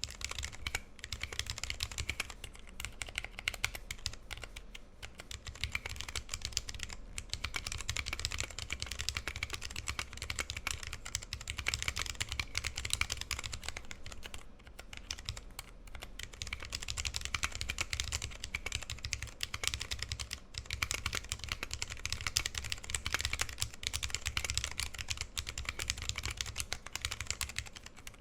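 Continuous fast typing on a 60% mechanical keyboard with vintage brown Alps switches lubed with PTFE, in a brass plate, under PBT keycaps: a dense run of rapid key clicks with brief pauses between words, over a steady low hum.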